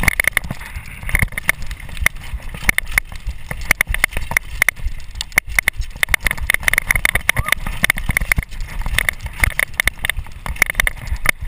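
Downhill mountain bike rattling over a rocky dirt trail, heard from a camera on the rider's chest: a constant dense clatter of rapid knocks and clicks from the bike and its tyres hitting rocks and roots.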